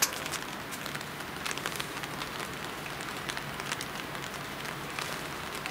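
Rain falling, a steady hiss with many small irregular ticks of drops striking close to the microphone.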